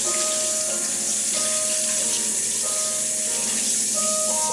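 Tap water running into a sink while hands are washed, a steady splashing hiss that is shut off right at the end.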